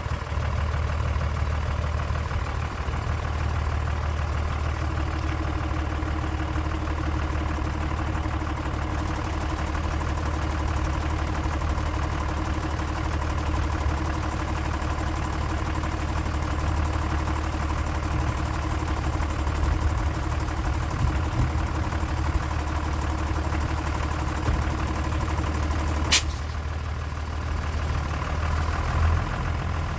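Renault Midlum 4x4 truck's diesel engine idling steadily, with a single sharp knock near the end.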